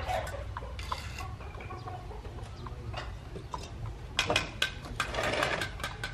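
Chickens clucking, with scattered sharp knocks and clicks from work going on around them. The knocks bunch together about four seconds in.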